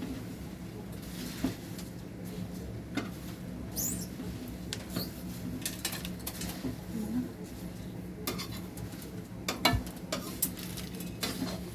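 Dry puffed rice being stirred and tossed with a spoon in a metal pan or bowl: a light, dry rustling with scattered clinks and scrapes of the spoon against the metal, over a steady low hum.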